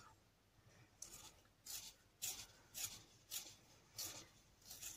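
Wax-based colour pencil being turned in a small metal two-hole hand sharpener: faint, short scraping strokes of the blade shaving the wood, about two a second.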